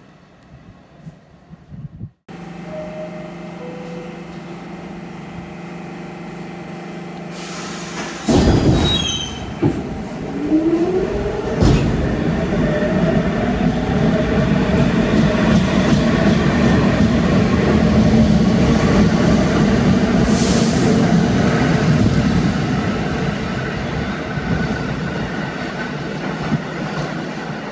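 New York City subway train running on steel rails. A rumble builds, then turns loud about eight seconds in with sharp clicks and a brief rising squeal, and the steady wheel-and-rail noise eases slightly near the end.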